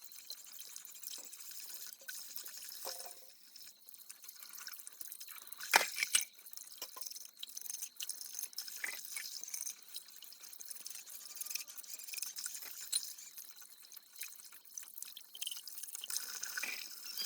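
Dishes being washed by hand: water dripping and splashing in the sink, with scattered small clinks of utensils and one sharp knock about six seconds in.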